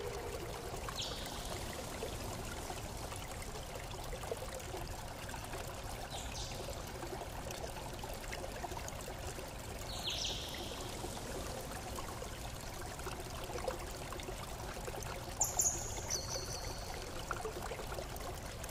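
Steady rushing, flowing-water noise, like a running stream, with a few short high chirps at intervals.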